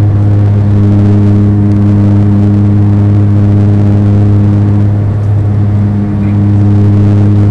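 Turboprop airliner's engine and propeller running at climb power, heard from inside the cabin as a loud, steady, deep drone with a low hum and a fainter hum an octave above.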